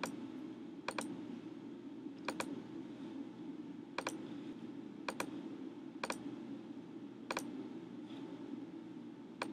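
Computer mouse clicking: seven sharp single clicks at uneven intervals, about one every second or so, over a faint steady room hum.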